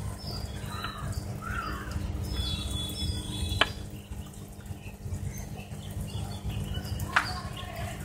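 Small birds chirping over a steady low hum. Two sharp clicks, about three and a half seconds in and again near the end, come as a reagent bottle and glass test tube are handled and set down.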